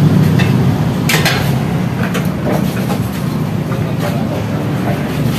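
Steady low engine rumble, with a few sharp clinks of plates being set down on a table about a second in and again around two and a half seconds in.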